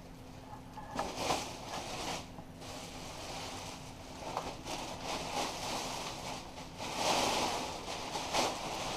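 Plastic packaging rustling and crinkling in the hands as a fishing net is unwrapped, with irregular crackles and a louder spell of rustling near the end.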